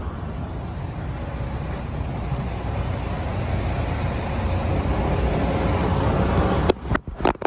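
Steady low rumbling noise that grows slowly louder. About seven seconds in it breaks into a few sharp knocks and rustles as the phone is handled, then falls much quieter.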